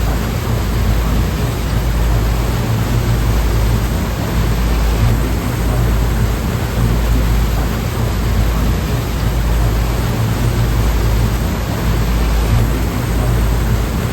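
Sea surf washing in a steady, dense hiss with a heavy low rumble underneath, swelling and easing slightly.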